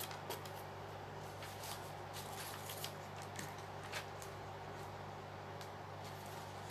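Faint rustling of paper and a few soft taps as the collage journal's pages are handled, over a steady low electrical hum.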